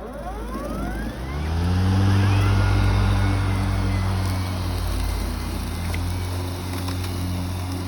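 EGO battery-powered lawn mower starting: its electric motor and blade spin up with a rising whine over the first second and a half, then run at a steady hum.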